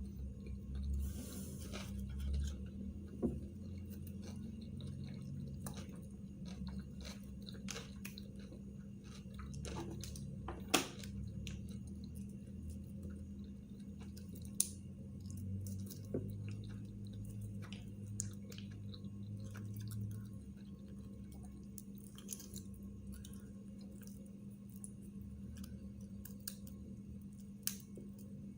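A person chewing mouthfuls of Philadelphia sushi rolls close to the microphone, with scattered small clicks and wet mouth sounds over a steady low hum.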